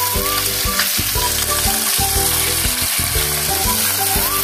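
Small topse fish (mango fish) frying in hot mustard oil, a steady sizzle as a wooden spatula turns them in the pan. Background music plays underneath.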